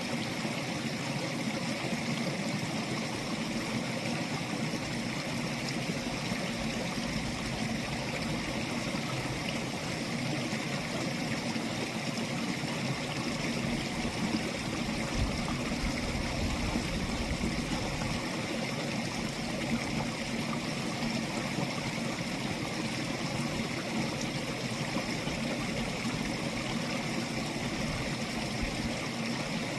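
Stream water flowing, a steady unbroken rush.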